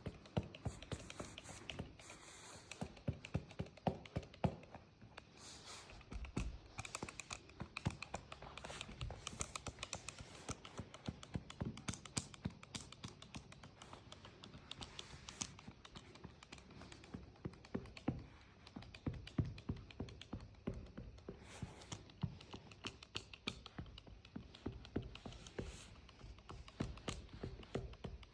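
Handheld massage hammer tapping lightly and rapidly, several taps a second, in runs with short pauses.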